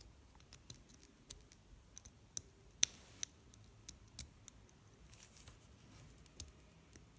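Lock pick working the pin stack of an American 5300 series padlock under tension: irregular small metallic clicks and ticks as the pins are probed, with one sharper click nearly three seconds in.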